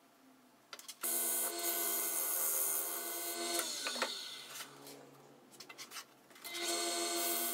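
Wood lathe motor switched on about a second in and running with a steady whine. It is switched off near the middle and its pitch falls as it spins down. A few light knocks follow as the tool rest is repositioned, and the lathe starts up again near the end.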